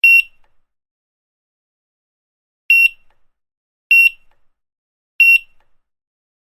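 Supermarket checkout barcode scanner beeping: four short, high single-pitch beeps. The first comes right at the start, then after a pause of over two seconds three more follow about a second and a quarter apart.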